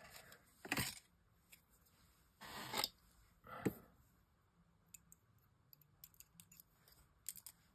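Faint handling of small die-cut card pieces: three brief rustles or scrapes of paper card in the first four seconds, then a scatter of light ticks.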